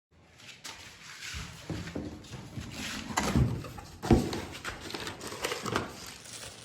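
Irregular handling noises: knocks, clicks and rustling, with two sharper knocks around the middle.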